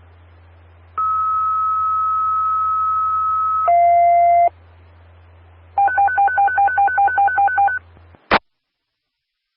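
Radio dispatch alert tones coming through a scanner radio. A long steady beep of about three seconds, then a short lower tone, and after a pause a rapid two-pitch pulsing beep about five times a second for two seconds. The channel's low hum cuts off with a sharp squelch click.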